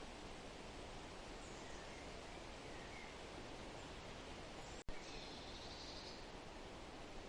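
Forest ambience: a faint, steady rustling hiss with a few soft bird chirps, and a buzzy bird trill about five seconds in. Just before the trill the sound cuts out for a split second.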